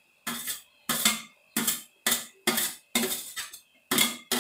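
A metal spoon scraping and clinking against a stainless steel plate in quick, even strokes, about two a second, as crumbled paneer is pushed off the plate into a pan.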